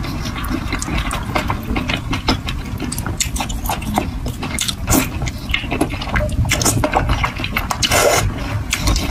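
Close-miked eating of thick, chewy noodles in spicy red sauce: wet slurping, chewing and sticky mouth sounds in irregular bursts, over a steady low rumble.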